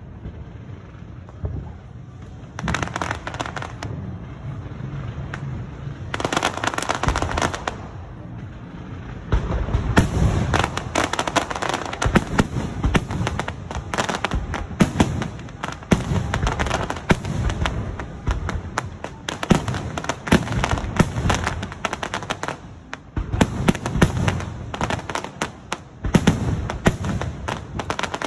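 Aerial fireworks bursting overhead in a dense volley of bangs and crackling stars. The bursts are sparser at first and come thick and nearly continuous from about ten seconds in.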